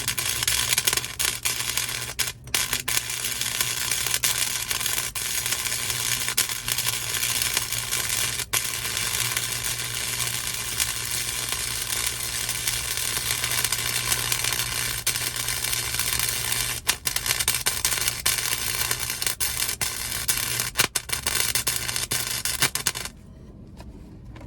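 Welding arc crackling and sizzling steadily on sheet-steel car floor pans, with a low electrical hum under it and a few split-second breaks. It stops abruptly near the end. The run is a steady, continuous bead that the welder afterwards calls way better.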